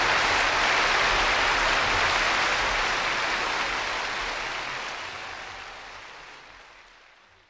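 Audience applause after a song ends, a steady even clapping that fades out over the last few seconds.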